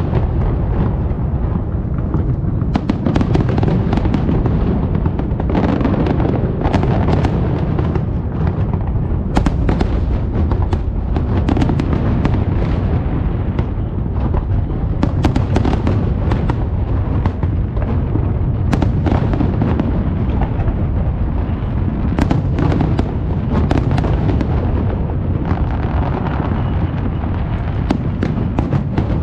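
Large aerial fireworks display going off without pause. Overlapping booms make a continuous rumble, with many sharp cracks and pops on top.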